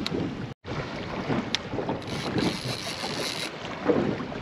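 Wind on the microphone and water slapping an inflatable boat, with the sound cutting out for a moment about half a second in. About two and a half seconds in, a high buzz lasts about a second: the fishing reel's drag giving line to a hooked fish.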